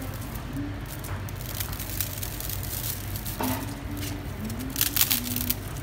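Dry rice vermicelli (bihon) being pressed by hand into a wok of simmering broth: soft crackling and squishing, with a brief louder rustle about five seconds in. A steady low hum sits underneath.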